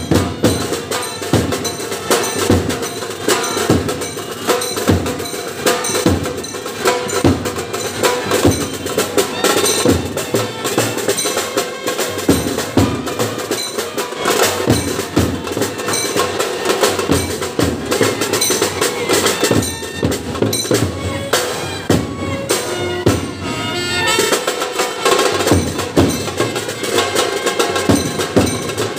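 Street brass band playing: bass drums and snare drums beat a dense, driving rhythm, with trumpets, clarinets and saxophones playing over them.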